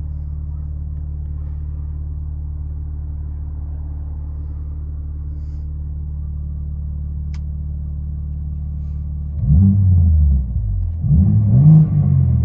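2022 BMW M3 Competition's 3.0-litre twin-turbo inline-six idling steadily through a dual exhaust with an X-pipe, resonator delete and the exhaust flaps fully open, heard inside the cabin. About nine and a half seconds in it is revved twice, the pitch rising and falling with each blip.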